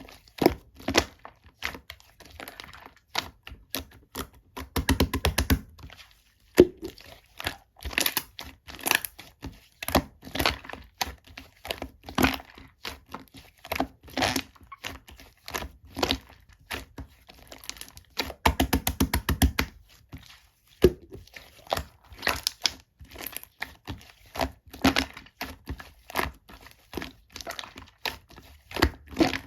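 Hands squeezing and pressing ice whipped-cream slime: irregular sticky clicks and crackling pops, with twice a fast run of rapid popping as the slime is squished.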